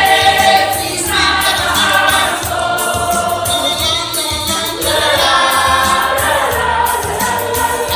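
Church choir singing a gospel song together in several voices, with a steady low accompaniment underneath.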